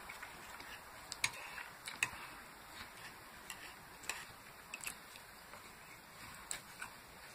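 Quiet eating sounds: a fork clicking against the plate a few times as it picks at noodles and fried chicken, with chewing in between.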